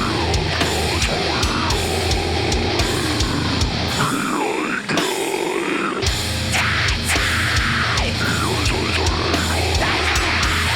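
Heavy metal music with harsh screamed vocals over a loud, dense band and steady drum hits. Near the middle the low end drops out for about two seconds, then the full band comes back in.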